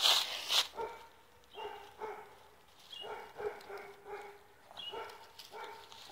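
A dog barking repeatedly, a bark about every half second, at some distance. A short, loud burst of rustling noise comes right at the start, before the barking.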